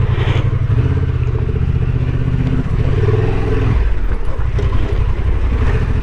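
Honda Transalp 750's parallel-twin engine running under way at low speed, its pitch rising for about a second near the middle and then dropping back.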